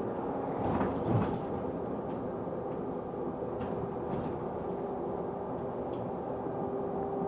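London double-deck bus heard from inside while under way: steady drivetrain running noise with a droning tone held at a constant pitch, the weird noise the uploader is recording. A couple of short knocks or rattles come about a second in.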